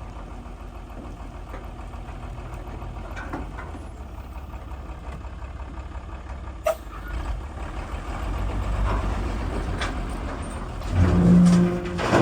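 Heavy diesel engine running, growing louder in the second half, with a single sharp knock about halfway and a short, louder pitched surge near the end.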